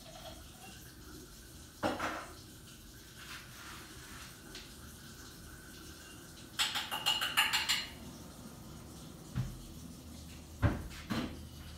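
Dishes and cutlery being handled: a single knock about two seconds in, a quick run of clinks with a ringing note for about a second around seven seconds in, then a few duller knocks near the end.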